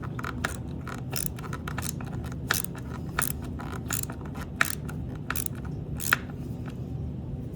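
Socket ratchet clicking in short, irregular strokes as bolts are run in and snugged only loosely, not fully tightened. The clicks come about two a second and stop about six seconds in.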